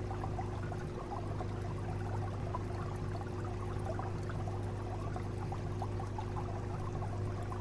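Aquarium equipment running: steady trickling, bubbling water over a low, constant pump hum.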